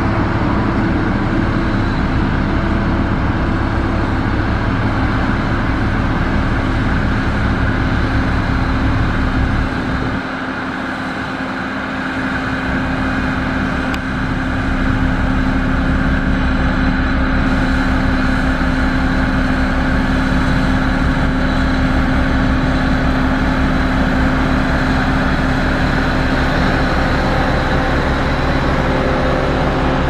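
Motor grader's diesel engine running steadily under load, dropping in level briefly about ten seconds in and then picking up again.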